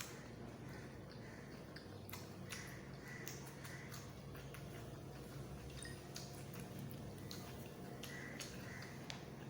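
Close-up chewing of egg fried rice and chilli chicken curry: irregular wet mouth clicks and smacks over a steady low background hum.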